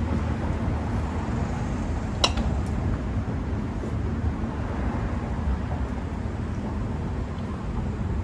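Steady low rumble of street traffic, with a single sharp clink of crockery set down on a wooden table about two seconds in.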